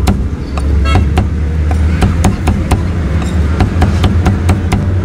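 Meat cleaver chopping roast pork on a round wooden chopping block: quick sharp chops, about three or four a second, over a steady low engine rumble.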